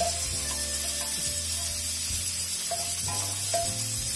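Hot oil sizzling steadily in a frying pan as fried dried red chiles are lifted out with a slotted spatula.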